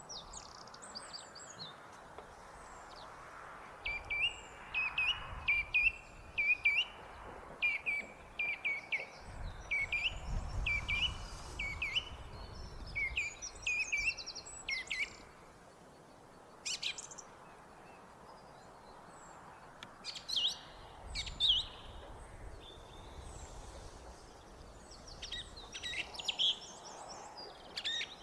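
Song thrush singing: series of short, clear phrases, each repeated several times in quick succession, then more varied phrases after a lull.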